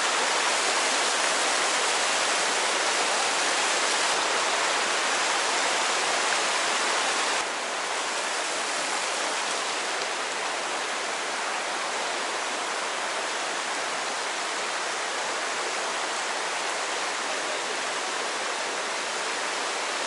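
Mountain stream rushing steadily over rocks in a shallow riffle, a continuous water noise that drops slightly in level about seven and a half seconds in.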